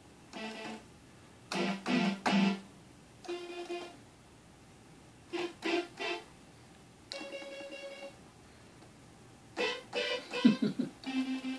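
A toddler pressing keys on a Kurzweil K2-series synthesizer, sounding scattered single notes and small clusters of notes at an irregular pace with pauses between them. One note is held for about a second midway, and there is a denser cluster of notes near the end.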